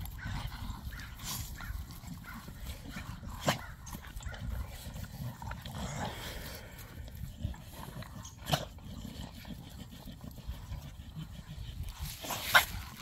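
American Bully puppies playing with an adult dog, giving three brief, sharp dog sounds spread through, the loudest near the end.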